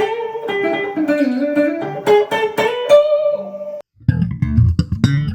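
Electric guitar played: a quick run of picked notes with sliding, bending pitch, then a brief break about four seconds in and a few lower notes.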